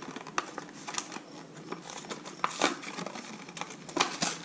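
Irregular crinkling and small clicks from handling a new inline fuel filter and its plastic packaging.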